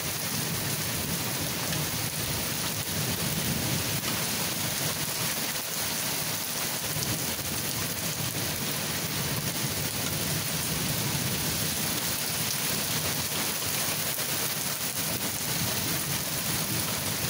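Steady rain falling, with low rolling thunder swelling beneath it at times.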